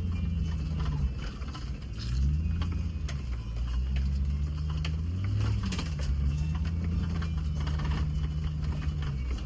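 Land Rover Discovery's engine pulling on a rough off-road trail, its pitch climbing about two seconds in, dipping in the middle and falling away near the end as the throttle is worked. Scattered knocks and rattles run through it.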